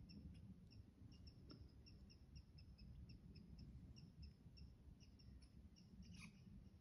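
Near silence, with faint short high chirps repeating about three times a second.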